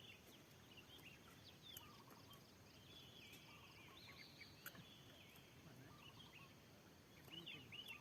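Faint bird calls: scattered short chirps and whistles, with a longer held whistled phrase about three seconds in and a quick flurry of chirps near the end.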